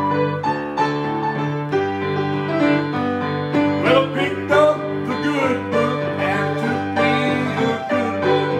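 Grand piano playing a gospel song, with held bass notes under a melody line.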